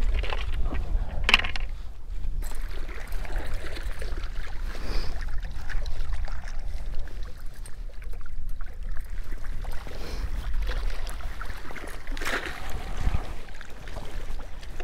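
Wind buffeting the microphone in a steady low rumble, with small waves lapping the rocky shore. A few brief clicks and rustles come from a crappie being handled and clipped onto a metal stringer.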